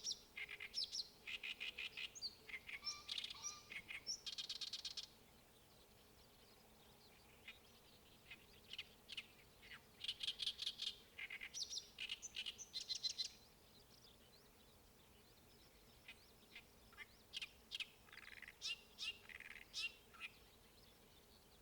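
A songbird singing in three bouts of fast, repeated chattering notes, with short pauses between them.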